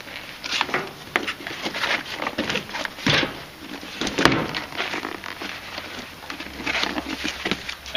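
Cardboard box being opened and handled: flaps popped apart and the box and paper inside rustling and scraping, with two louder knocks about three and four seconds in.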